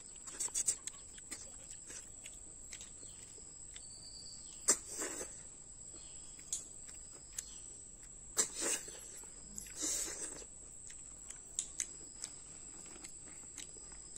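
Small cooked snails being sucked out of their shells by mouth, three loud slurps about five, eight and a half and ten seconds in, between light clicks of shells being picked over by hand. A steady high trill of crickets carries on behind.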